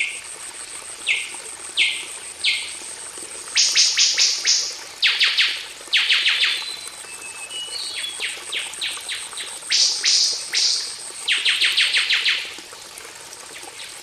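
Recorded songbird song: sharp downward-sweeping chirps, a few single ones at first and then quick runs of four to six, over the steady hiss of running water. A thin, high, steady tone runs under the song and stops near the end.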